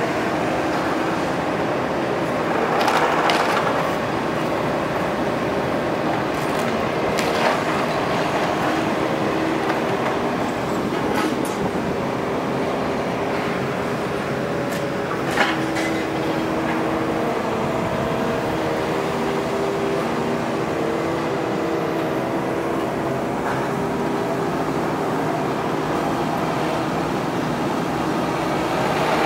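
Volvo EC380HR high-reach demolition excavator running steadily, its engine and hydraulics shifting in pitch as it works. A few sharp cracks and knocks of demolition break through, the sharpest about halfway.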